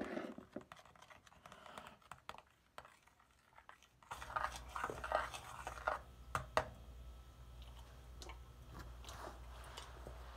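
Quiet handling sounds around a mixing bowl of sauce: faint scattered clicks and scrapes, then from about four seconds in a low steady hum under a cluster of short clicks and smacks.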